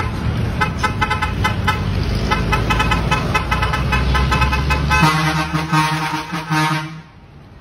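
A truck's multi-trumpet air horns sounding: a rapid series of short high toots over a low engine rumble, then a deeper steady horn blast for about two seconds that cuts off suddenly near the end.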